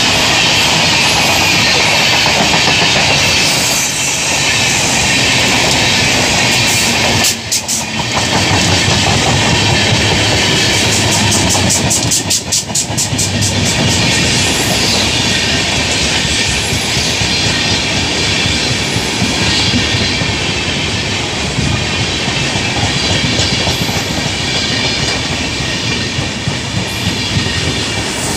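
LHB passenger coaches of an express train rushing past close by at speed: a steady rush and rumble with the wheels clattering over rail joints, including a run of rapid clicks around twelve seconds in.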